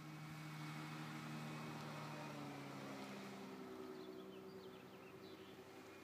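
Steady vehicle engine hum that shifts in pitch a little past halfway through, with a few short bird chirps in the second half.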